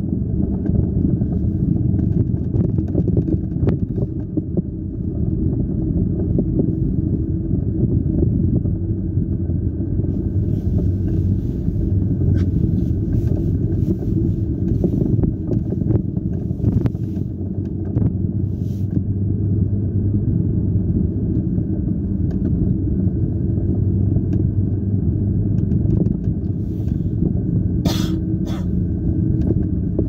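A car driving on a snow-covered road, heard from inside the cabin: a steady low rumble of engine and tyres, with scattered faint ticks and one sharper click near the end.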